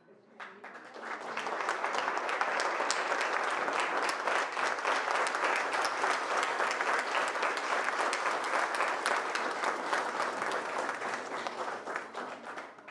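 Audience applauding, swelling over the first second or two, holding steady, then dying away near the end.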